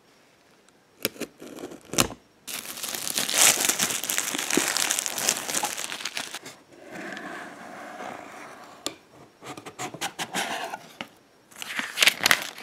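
Plastic shrink-wrap being torn and crinkled off a cardboard box, a dense stretch of crackling that lasts a few seconds. After it comes quieter rustling and clicking as the cardboard box is handled and opened, and near the end a burst of paper rustling as the printed insert is lifted out.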